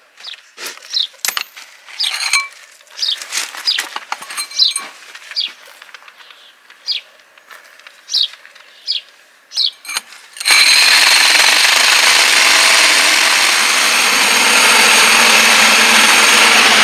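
Short bird chirps, then about ten seconds in a power drill fitted with a core hole-saw bit starts suddenly and runs steadily and loud, boring through the outside wall for the vent-pipe hole.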